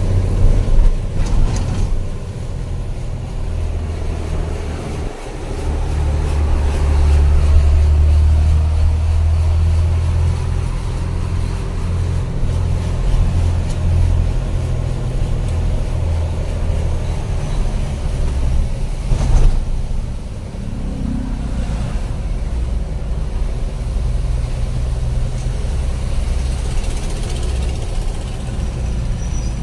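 Truck engine running and road noise heard from inside the cab while driving, as a steady low drone. It drops briefly about five seconds in, then pulls harder for a few seconds.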